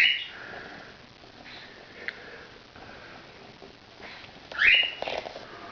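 A person sniffing sharply twice, once right at the start and again about four and a half seconds in, with a few faint clicks between.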